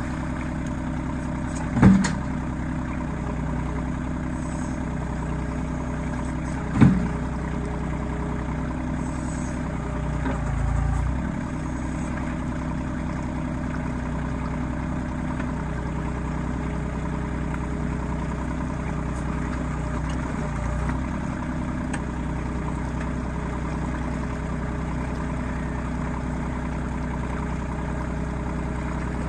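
Compact tractor's diesel engine running steadily with the backhoe at work. Two sharp knocks come about two and seven seconds in, and the engine's low note swells briefly twice, around eleven and twenty-one seconds.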